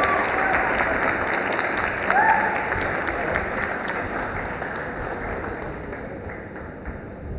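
Arena crowd applauding and cheering a fighter's introduction, the clapping fading steadily. A single short shout rises out of the crowd about two seconds in.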